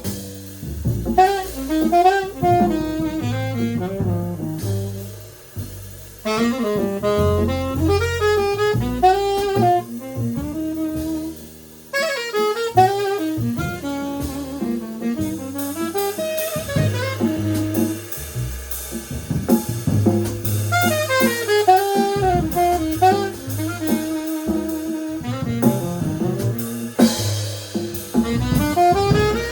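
Jazz trio playing: an alto saxophone plays a fast, flowing melodic line over drum kit and bass, with brief breaks in the phrasing about six and twelve seconds in.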